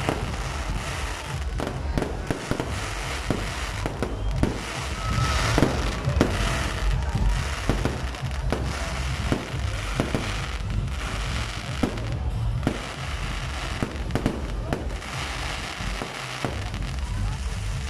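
Fireworks going off in quick, irregular succession: many sharp bangs and crackling bursts as shells and comets are fired and explode.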